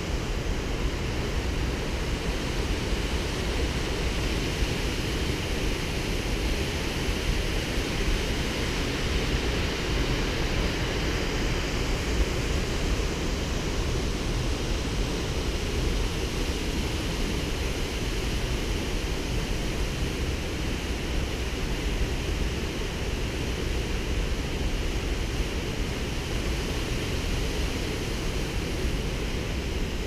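A waterfall's water rushing in a steady, unbroken roar.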